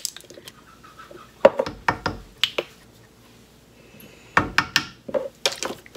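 Light clicks and knocks of a spice container and a plastic measuring spoon being handled as black pepper is measured out and tipped into a stockpot. They come in two short clusters, one about a second and a half in and another about four and a half seconds in.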